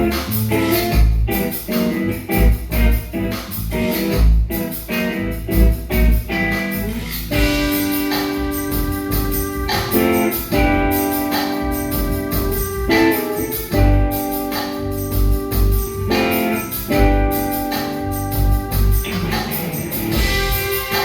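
A band playing music live at a sound check, with a steady low beat; from about seven seconds in, long held chords sound over it.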